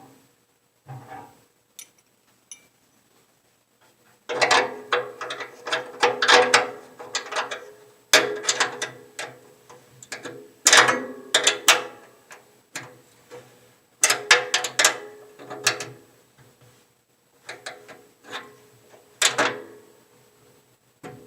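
Ratchet wrench clicking in quick runs as nuts are tightened onto bolts plugging the grill's vent holes, with short pauses between the runs.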